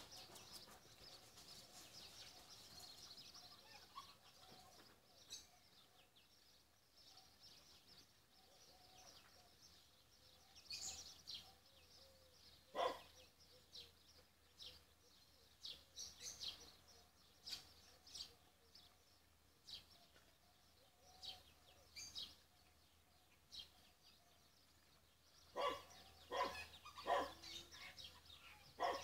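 Quiet outdoor ambience with faint, scattered bird chirps. There is a short sharp knock about halfway through, and a quick cluster of louder knocks near the end.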